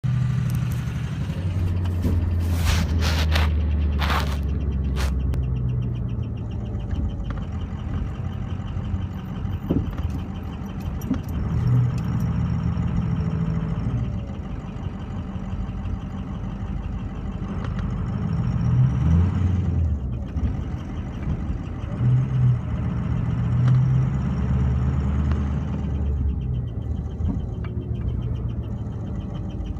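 2004 Ford 6.0 Powerstroke V8 turbodiesel running with a fast, regular ticking in its sound: a bad lifter. A few sharp, high clicks come about three seconds in.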